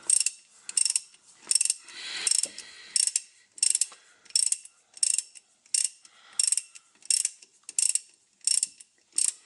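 Socket ratchet clicking in short, even back-strokes, about one and a half a second, as a drain plug on a tractor's front driveline is wound out.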